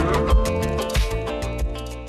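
Background music with a steady beat and sustained tones, getting quieter near the end.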